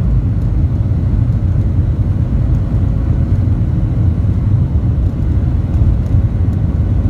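Boeing 737-800's CFM56-7B turbofan engines heard from inside the cabin: a loud, steady low rumble with a faint steady tone above it.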